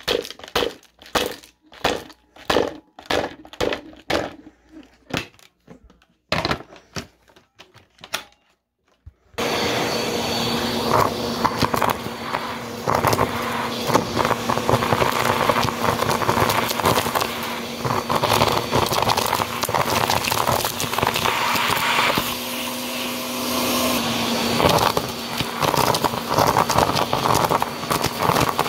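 Vacuum cleaner running steadily while it sucks up a pile of pencil shavings, buttons and paper bits from carpet, the debris crackling and rattling into the nozzle. Before the motor sound, for about the first nine seconds, there is a run of separate sharp clicks with silence between them.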